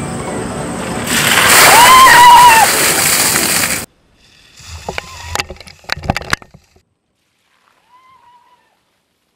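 About 17 gallons of ice water poured from a large plastic bucket crashing down onto two people: a loud rushing splash with a voice crying out over it. After an abrupt cut, a shorter burst of sharp splashes and slaps, then near silence.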